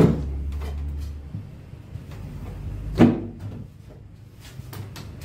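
Wooden crosscut sled being shifted on a table-saw top: a knock, about a second of low sliding rumble, then a second sharp knock about three seconds in. The sled wobbles because it is not yet fixed with slotted holes.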